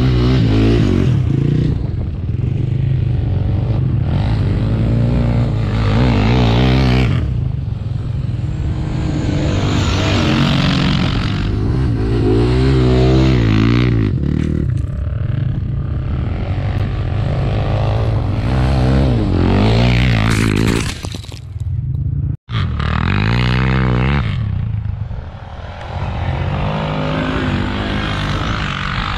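Quad bike (ATV) engine revving up and falling back again and again under throttle. The sound briefly cuts out about two-thirds of the way through.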